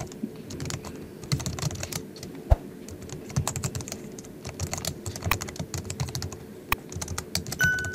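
Typing on a Logitech MX Keys keyboard: its low-profile scissor-switch keys click in quick, irregular strokes close to the microphone. A short electronic beep sounds near the end.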